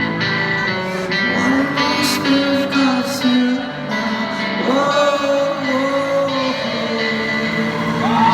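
Live music: a man sings long held notes with a wavering vibrato over guitar chords.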